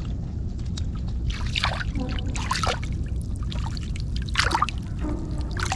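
Shallow muddy water splashing and trickling, with about four short splashes over a steady low rumble.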